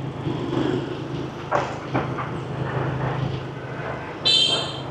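Motorbike riding through city traffic: steady engine hum and road noise, with two brief knocks about a second and a half and two seconds in. Near the end a vehicle horn gives one short, high-pitched beep, the loudest sound here.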